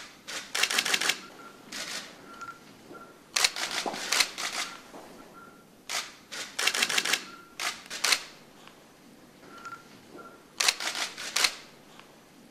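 Camera shutters firing in several quick runs of clicks, with single clicks between.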